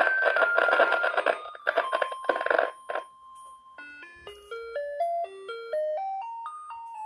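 YH-886 garbage-truck music-bell unit playing its electronic melody, a tune of single beeping notes. For the first three seconds a held note sits under loud crackling noise; after that the notes step up and down in a quick run.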